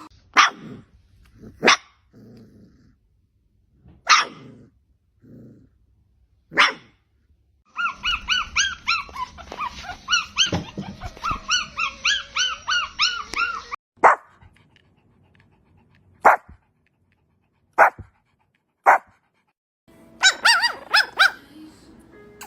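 Dogs barking: single short, sharp barks a second or more apart, with a run of rapid, high-pitched yelps for about six seconds in the middle.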